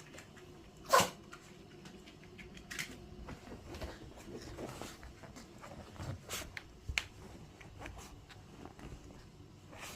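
A chihuahua sneezes once, sharply and loudly, about a second in, then makes a few fainter short noises and clicks. Apparently the smell of its coconut shampoo set off the sneezing.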